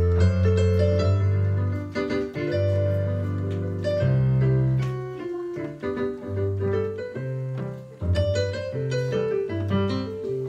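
Electronic keyboard played live with a piano voice: long low bass notes held under chords, with a melody moving above, starting suddenly at full volume.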